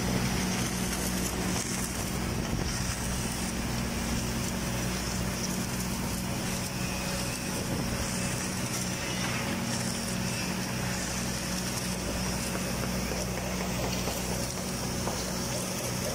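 Automatic girth welding machine running a horizontal submerged-arc root pass: a steady low electrical hum with a constant hiss over it.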